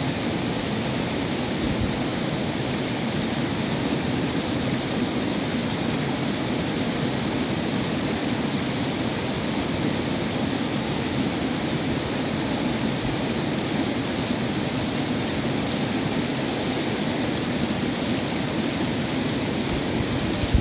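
River rapids: shallow water rushing over and around boulders in a steady, even rush of white water.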